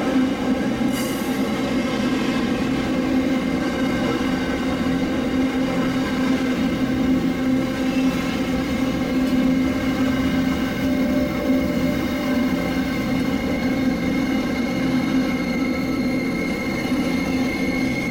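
Train running steadily, a continuous drone made of several steady tones, with a thin high tone coming up near the end.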